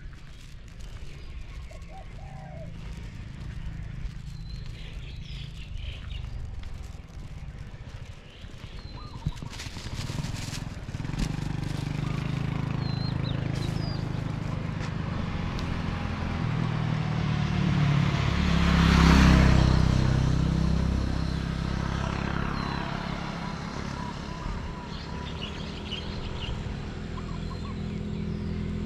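Motor vehicle engine running along a road, growing louder from about a third of the way in, with a vehicle passing close by about two-thirds of the way in; faint bird chirps.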